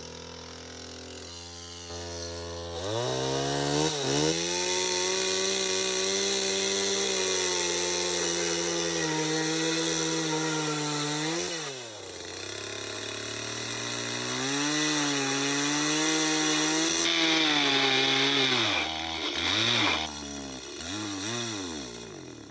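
Gas chainsaw idling, then revved up and cutting into a wooden pallet, the revs rising and falling several times. It sputters through a few last revs and cuts out near the end as it runs out of fuel.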